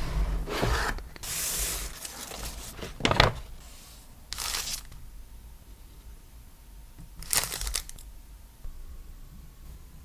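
Packaging being handled and opened: bursts of crinkling and tearing wrapping, with a sharp crackle about three seconds in and shorter rustles later.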